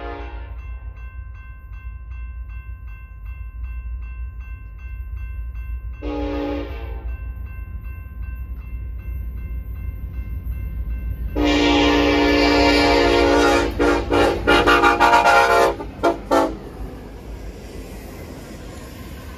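Union Pacific SD70ACe locomotive's air horn blowing for a grade crossing: a blast ending just at the start, a shorter one about six seconds in, then a long loud blast about eleven seconds in followed by a run of short blasts, over the low rumble of the approaching freight train. Between the blasts a crossing bell rings steadily, and near the end the locomotives pass close by.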